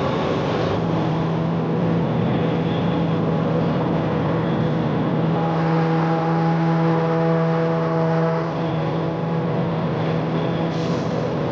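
Engine of a farm machine running steadily with a constant drone, a higher whine joining for a few seconds midway.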